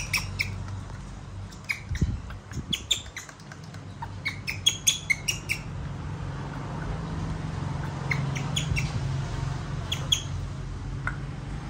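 Baby monkey making short, high-pitched squeaks and chirps in several clusters, over a low steady hum.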